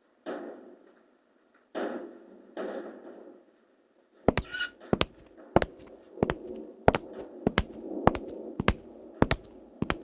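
A few short rustling bursts, then from about four seconds in a quick run of sharp knocks, many in pairs, a comic knocking sound effect.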